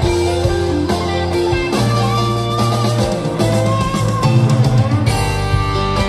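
Background music: a rock-style track with guitar and drums, playing steadily.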